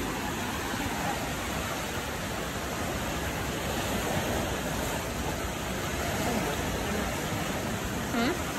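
Steady rush of ocean surf washing up onto the beach.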